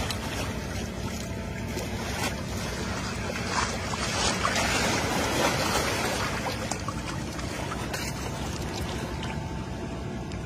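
Small shore wave washing up over the sand and draining back: a hiss that swells about four seconds in and fades by about seven, over a steady low rumble.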